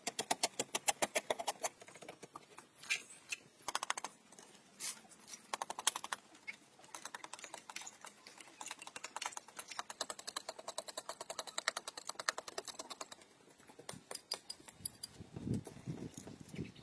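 Hand tools scraping and hoeing dry earth and mud: runs of quick, gritty scraping strokes with short pauses, and a few duller strikes into soil near the end.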